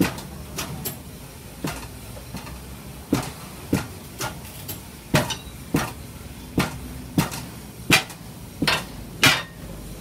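Repeated hammer blows on metal during a car tyre change: about fifteen sharp strikes at an uneven pace, one or two a second.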